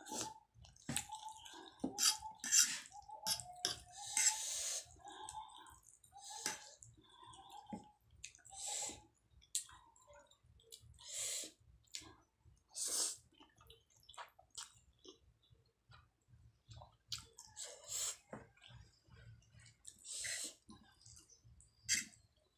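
Ramen noodles slurped and chewed close to the microphone: repeated short wet slurps a few seconds apart, with chewing and small clicks between them.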